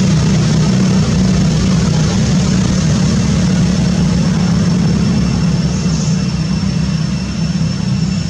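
A steady, low engine-like drone runs throughout, with a faint, thin, steady high tone above it.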